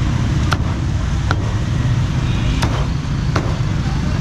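Cleaver chopping roast pork on a chopping block: four sharp strikes, about a second apart. They sit over a steady low rumble of street traffic.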